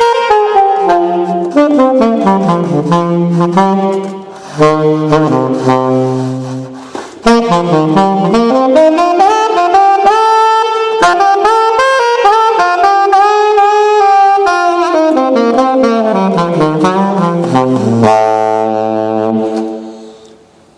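1927 gold-plated Martin saxophone played solo, a blues line with phrases sweeping down to low notes and two brief breath pauses, ending on a long held low note near the end.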